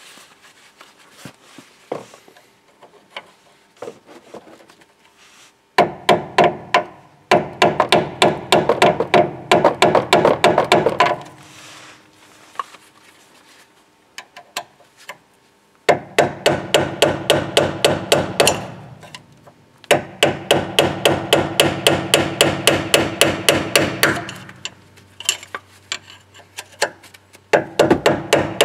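Hammer blows on a steel tool held against a seized anti-roll bar (sway bar) link stud, struck fast, about five or six a second, in three long runs with a ringing metallic note, knocking the link out of its mounting hole.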